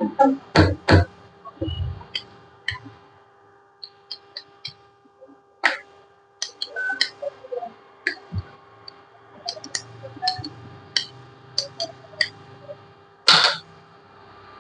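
Irregular clicks and knocks of kitchen utensils and dishes being handled, with a low thump about two seconds in and a louder clatter near the end, over a steady faint hum.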